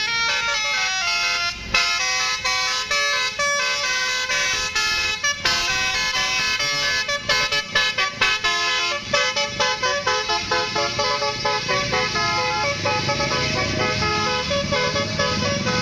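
Bus 'telolet' horn, a multi-tone musical air horn on an Indonesian tour bus, playing a tune of stepping notes. Around the middle the notes come in short choppy blasts, then longer held notes follow. Underneath, a bus engine rumble grows louder in the second half.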